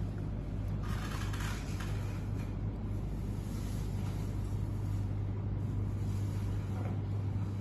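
Steady low background hum and rumble with no distinct events, and a faint soft rustle about a second in.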